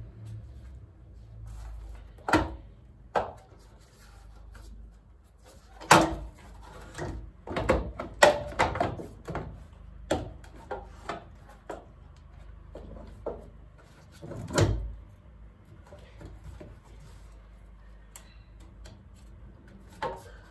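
Irregular clinks and knocks of hand tools and metal engine parts being handled during cylinder-head disassembly, with a few louder knocks scattered through.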